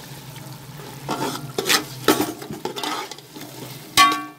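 Slotted metal spoon stirring boiled chickpeas into sizzling masala in a metal pot: a steady low sizzle with several scraping strokes. Near the end the spoon knocks against the pot with a loud ringing clink.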